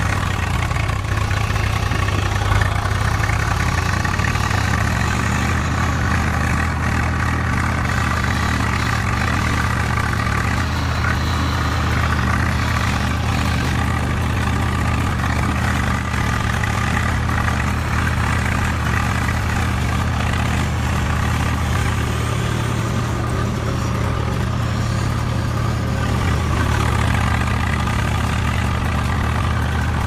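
Steady engine idle like a tractor's diesel, low and even, with no revving. It does not change when the picture cuts or the toys move, so it is an added engine sound, not the toys' small electric motors.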